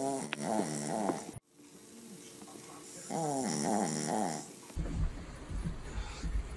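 Sleeping chihuahua puppy snoring: two drawn-out snores with a wavering, falling pitch, the second about three seconds in. A low rumbling noise takes over near the end.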